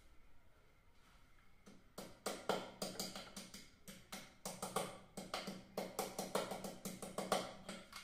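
Clicks and taps of a screwdriver working the terminal screws of an electrical contactor, plastic housing and metal screws knocking, about three a second, starting about two seconds in.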